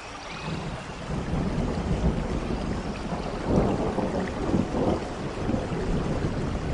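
Rain falling in a forest, with a deep rolling rumble of thunder that swells about half a second in and is loudest around the middle.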